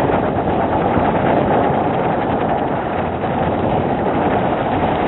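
Ground fireworks burning and spraying sparks, with a steady, dense hiss and fine crackle. The sound is dull, lacking any high end.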